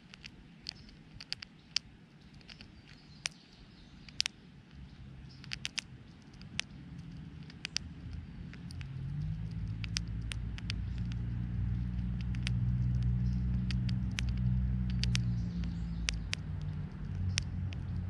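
Chipmunk cracking and chewing seeds close by: a run of sharp little clicks throughout. From about seven seconds in a low engine hum swells up and becomes the loudest sound.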